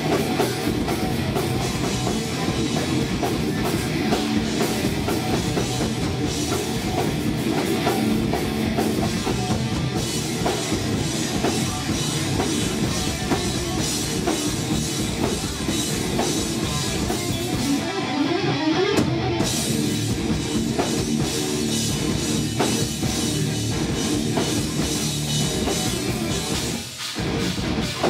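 Live heavy metal band playing loud: electric guitars, bass and drum kit, with a short break in the playing about a second before the end.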